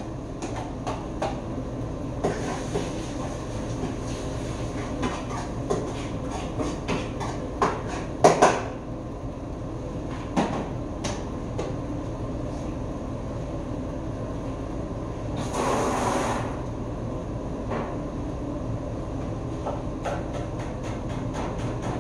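Kitchen work sounds over a steady hum: scattered clinks and knocks of utensils and dishes, with a louder clatter about eight seconds in and a brief rushing noise of about a second past the middle. Near the end a knife starts chopping rapidly on a wooden cutting board.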